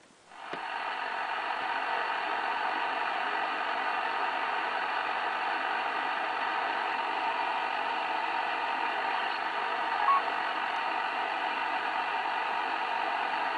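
Steady static hiss from an 11-metre band transceiver's speaker, receiving on lower sideband with no station coming through. It sets in about half a second in, as the radio drops out of transmit.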